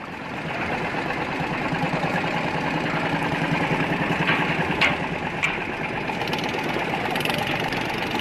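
Engines of small wooden fishing boats running steadily under way, over a steady rush of noise. Two short sharp sounds about halfway through.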